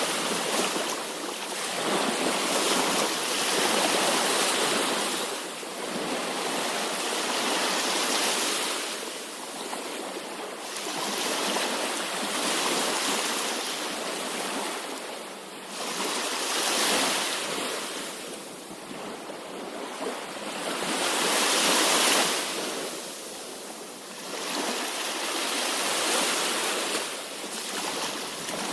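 Sea waves washing onto a shore, the surf swelling and ebbing in slow surges every few seconds.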